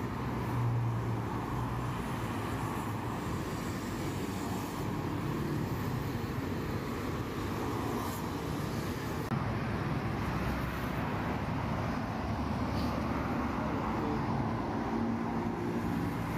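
Road traffic noise: vehicle engines running and tyres on the road, a steady mix with no single event standing out.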